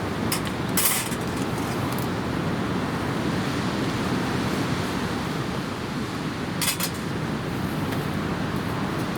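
Steady rushing background noise with a few short metallic clinks, a cluster in the first two seconds and another about two-thirds through.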